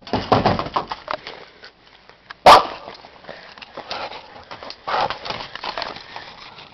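A keeshond dog hunting a possum, making a busy run of short scratchy noises and sniffing, with one very loud sharp sound about two and a half seconds in.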